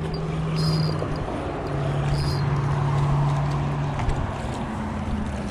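Road traffic: vehicle engines and tyres running steadily, the engine hum shifting in pitch a few times as vehicles pass.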